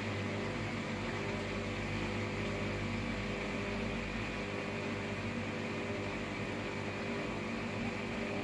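Hoover washer-dryer running steadily on its extra-dry drying stage: a continuous hum and fan-like whir from the motor and drying fan, with no break or change.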